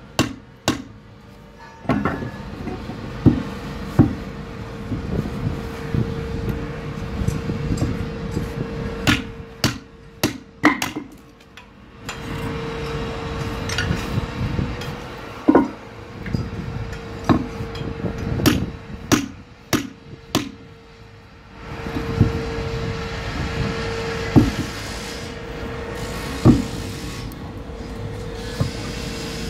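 A hammer striking a Gorilla Blockbuster bolster chisel to cut concrete blocks: a series of sharp, irregular blows, steel on steel, with a steady hum underneath.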